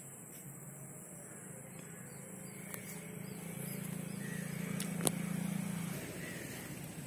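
A low, steady engine drone that swells and fades over a few seconds, as of a motor vehicle passing at a distance, with a few sharp clicks.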